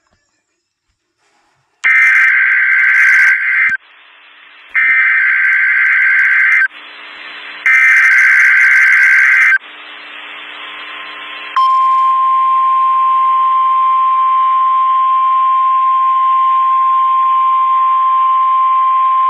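Mock Emergency Alert System warning tones: three loud, screeching bursts of digital SAME header data, about two seconds each with static hiss between them. About eleven seconds in they give way to one long, steady, single-pitched alert tone of the weather-radio kind, which holds on.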